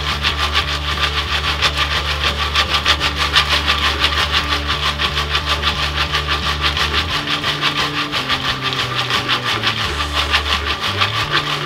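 Jiffy Pop aluminium pan being shaken back and forth on the steel grate of a propane stove burner, a continuous rapid rasping scrape. No kernels are popping yet; they are still heating in the oil.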